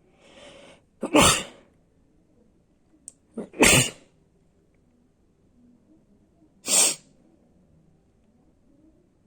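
A person sneezing three times in a sneezing fit, the loud sneezes about two and a half to three seconds apart. A noisy breath in comes just before the first.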